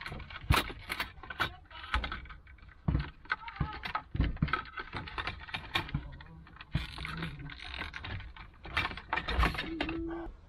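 Hard plastic dashboard trim panel of a Toyota Prius being pulled loose and handled: an irregular run of clicks, knocks and rattles from the panel and its clips.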